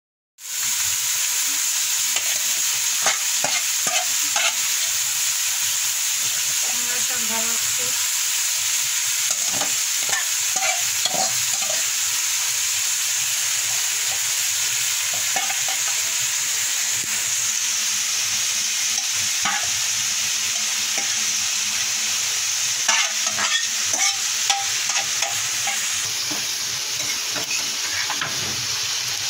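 Shrimp and radish greens sizzling in hot oil in a frying pan, with a spatula scraping and tapping the pan now and then as they are stirred. The sound cuts in after a brief silence at the very start.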